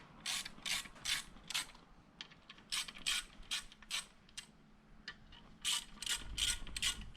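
Hand ratchet wrench clicking through short back-and-forth strokes, in three runs of about four strokes each with pauses between.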